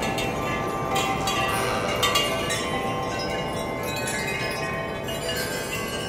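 Percussion music in which metal chimes ring, with several overlapping bell-like tones. Fresh strikes come about once a second near the start, and the tones carry on ringing.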